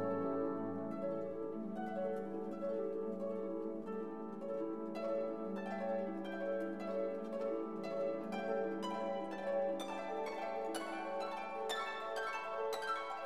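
Instrumental background music: held notes with plucked notes, which get busier in the second half.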